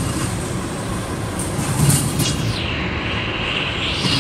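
Intermodal freight train of double-stack container well cars rolling past close by: a steady rumble of wheels on rail, with some higher hissing from the rolling cars.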